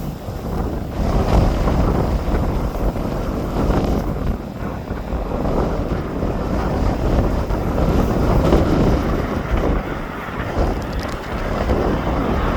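Strong wind buffeting a phone's microphone: a loud, low rushing noise that swells and eases in gusts.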